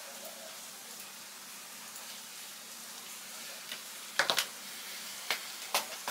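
Steady soft hiss of room noise, then from about four seconds in a few short, sharp clicks at a computer, keys or mouse buttons being pressed.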